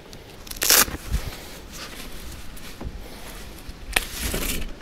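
A folded umbrella being handled and unfurled: its fabric canopy rustling and crinkling, with a sharp ripping burst just under a second in, a few dull knocks, and a longer spell of rustling about four seconds in.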